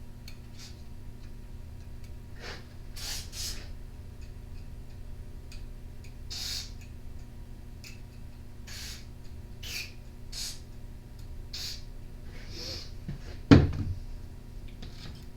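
Scattered light clicks and scrapes of small parts and tools being handled as a string trimmer is reassembled, over a steady low hum, with one sharp knock about 13 seconds in.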